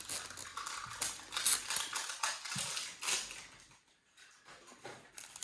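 Small plastic toy packaging being handled and opened: a run of quick clicks and crinkles, with a brief pause about four seconds in.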